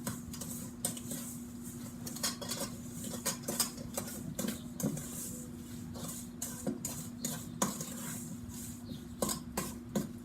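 Spoon stirring cut peaches and sugar in a bowl, with irregular clinks and scrapes against the bowl.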